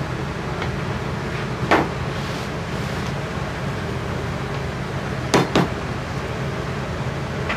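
Steady mechanical hum, with a sharp knock about two seconds in and two quick knocks close together about five and a half seconds in, from aluminium pan and utensils being handled during food prep.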